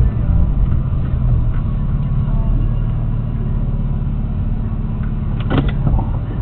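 Car engine running steadily near idle, heard from inside the cabin as the car creeps forward at walking pace. A few sharp clicks come about five and a half seconds in.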